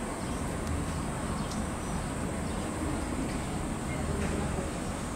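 Indistinct chatter of people in the background, with a steady high-pitched hum running underneath.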